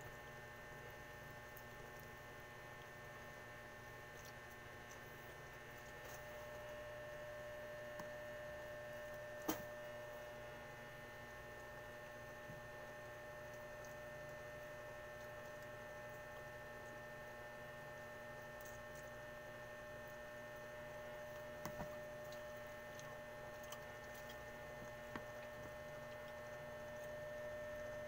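A steady electrical hum made of several level tones, with a few faint, brief clicks; the sharpest comes about nine and a half seconds in.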